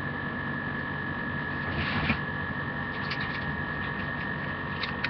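Steady electrical hum and hiss with a thin, constant high whine, with a few faint clicks and taps about two, three and five seconds in.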